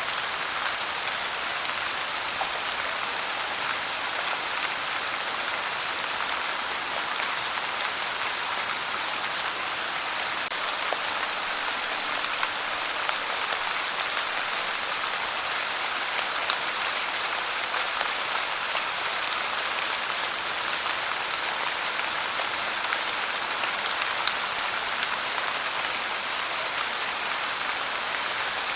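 Steady rain falling and pattering on a surface, an even hiss with small scattered drop ticks.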